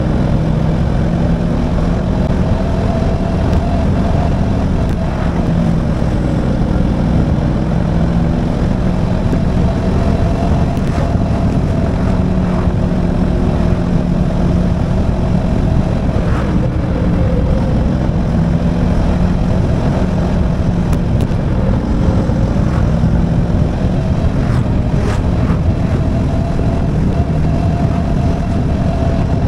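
Small motorcycle engine running steadily at cruising speed, its pitch drifting gently up and down with the throttle, over a heavy wind rumble on the action camera's microphone.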